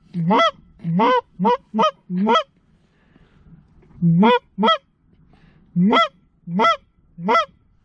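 Canada goose honks, about ten loud calls in quick runs, each breaking sharply upward in pitch, with a short pause in the middle.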